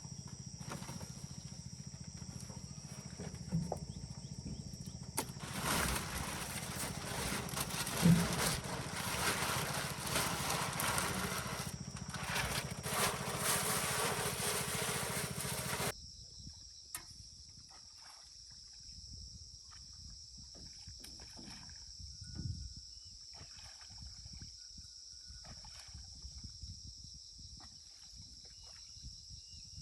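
Insects shrilling steadily outdoors. Over the first half, a loud rushing, splashing noise stops abruptly about halfway, leaving only the insects and a few faint clicks.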